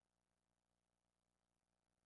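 Near silence: the answer pause of a recorded listening test, with only a very faint steady electrical hum.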